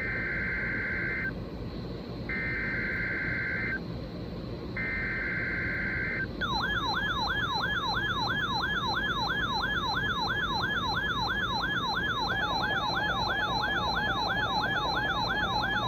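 NOAA Weather Radio SAME data header: three short bursts of two-tone digital screech, each about a second long with a second's gap between them. Then weather alert radios set off their alarms: a fast, repeating rising-and-falling warble of about three sweeps a second. In the second half a second receiver's faster, lower-pitched pulsing alarm joins it.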